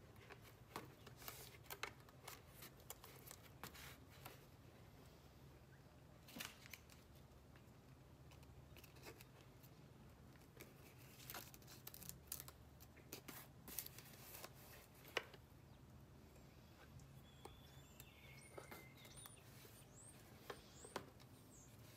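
Faint, scattered clicks, taps and crinkles of hard helmet halves being handled and fitted together, with blue painter's tape being worked on them.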